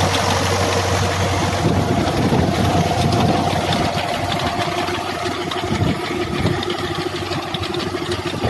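Kubota M7000 tractor's diesel engine running steadily under load as it pulls and drives a levee-building machine that forms a soil bund, a constant low drone.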